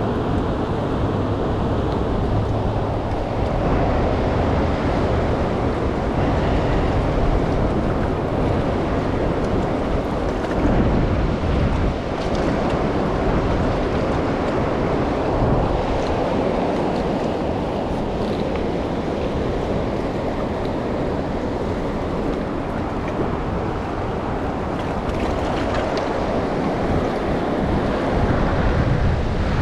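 Truckee River's current rushing steadily, with wind buffeting the microphone in a low, uneven rumble.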